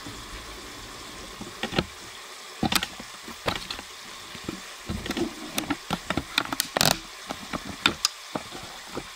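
Irregular clicks and knocks of things being handled on a kitchen counter, with low rumbling bumps as the camera is moved.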